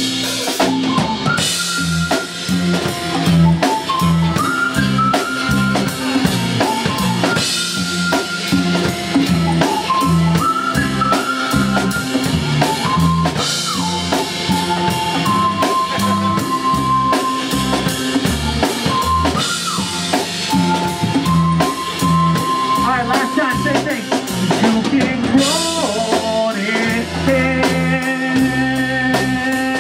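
Live pop-punk band playing an instrumental stretch with no vocals: drum kit and bass keep a steady beat under a held, sliding high melody line, and the sound thickens into fuller sustained chords near the end.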